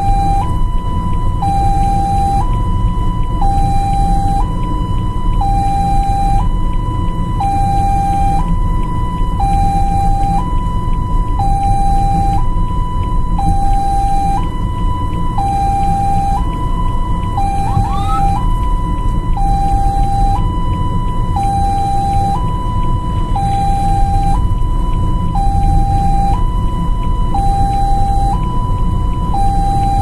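Ambulance two-tone hi-lo siren, alternating between a high and a low tone about once a second, over a steady low rumble of the moving vehicle.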